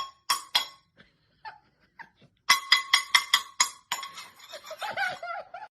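Sharp ringing clinks, like a glass or bowl being struck: a few near the start, then five or six in quick succession about two and a half seconds in. A short wavering call follows near the end.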